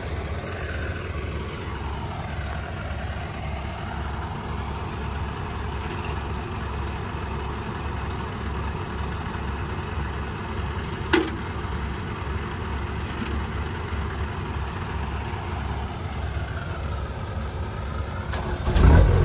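Farm machine's diesel engine idling with a steady low throb, a single sharp click about eleven seconds in. Near the end the engine grows louder as the tow pull gets under way.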